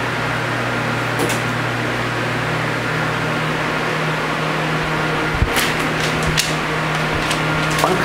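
Arno 40 cm table fan running at its top 'ultra' speed: a steady rush of air over a low motor hum. A paper leaflet held in the airflow flaps and rustles a few times, about a second in and again around five to six seconds in.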